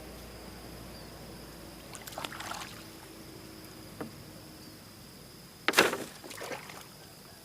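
Water splashing and sloshing in a few short bursts, about two seconds in and again, louder, near six seconds, with a single light knock in between. A faint steady high insect drone runs underneath.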